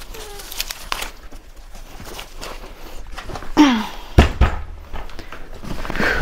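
A folded Radio Flyer stroller wagon's frame being handled, with small clicks and knocks and the rustle of its plastic wrapping. A brief falling tone comes a little after three and a half seconds, then a heavy thunk as the wagon is tipped upright onto the floor.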